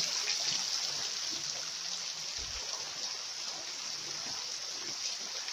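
Stream water running over rocks, a steady rush with no breaks.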